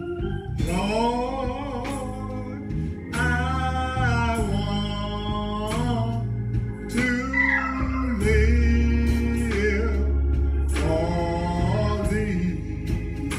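Gospel singing: a singer holds long, wavering notes over organ accompaniment.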